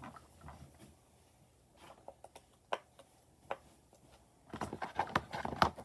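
Plastic fidget toys being handled and set down: a few scattered light clicks and taps, then a busier run of clicks and rustling near the end.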